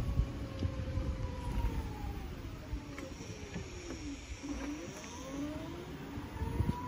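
A motor vehicle's engine running unseen, its pitch falling steadily for about four seconds and then rising again.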